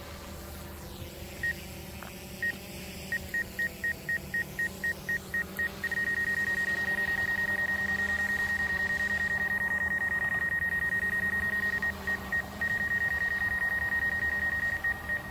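DJI Mavic 2 Zoom obstacle-proximity warning beeping from the flight app: a couple of single beeps, then a quickening run of about four a second that turns into a continuous high tone about six seconds in, with a few short breaks near the end, as the drone closes on an obstacle. A steady low hum runs underneath.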